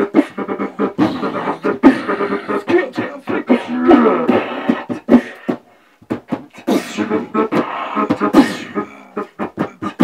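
Several beatboxers performing through handheld microphones: rapid mouth-percussion kick and snare hits layered with hummed bass and vocal tones. The beat drops out briefly a little past halfway, then picks up again.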